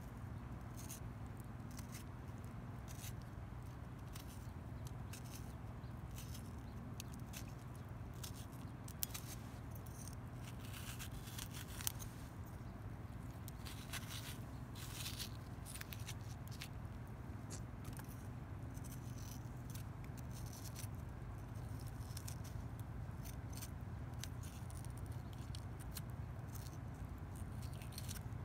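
A knife and metal spoon cutting and scraping the flesh out of a halved green tomato: irregular small clicks and wet scrapes, with two sharper clicks partway through, over a steady low background rumble.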